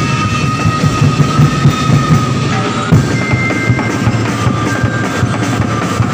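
Loud festival dance music driven by fast, dense drumming, with high held notes above the beat that change pitch about halfway through.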